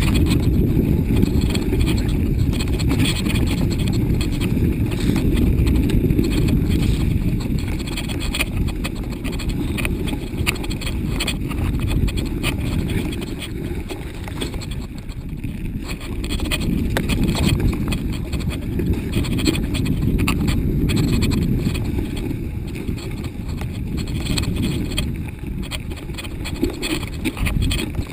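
Mountain bike riding down a rough, snowy trail, heard from a camera carried on the bike or rider: a heavy low rumble with constant rattles and knocks as the bike jolts over bumps. It swells and eases, then drops off right at the end.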